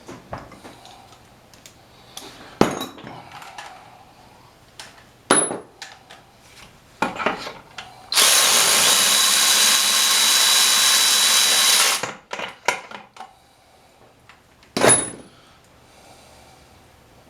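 A handheld power tool whirs steadily for about four seconds midway, amid scattered sharp metallic clinks and knocks, two of them ringing briefly, from tools and parts of an old Briggs & Stratton flathead engine being taken apart.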